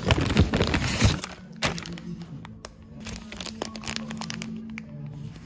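Paper wrapping and a clear plastic bag crinkling and rustling as a small package is opened by hand, loudest in the first second, then softer scattered crackles, over background music.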